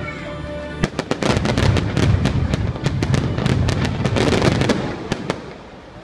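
Finale barrage of aerial fireworks: dozens of sharp bangs and pops in rapid succession over music, starting about a second in and thinning out after about five seconds.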